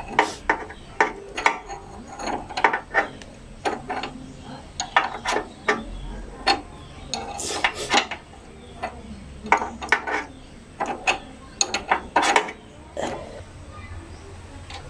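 Steel combination wrench clinking and clicking on a bolt and the surrounding metal as the rear suspension linkage bolt of a dirt bike is tightened, in a run of short, irregular metallic clicks.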